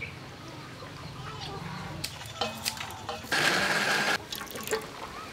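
Electric countertop blender running briefly, a loud whirring with a steady whine for about a second, blending liquid. Before it, a few light clicks and knocks of handling over a faint low hum.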